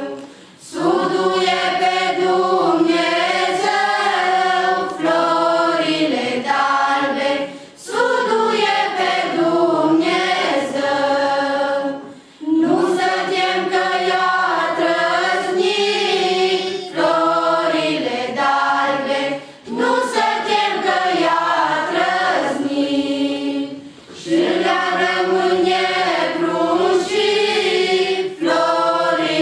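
A group of women and girls singing a Romanian colind (Christmas carol) without accompaniment. The carol comes in phrases a few seconds long, each broken by a short pause for breath.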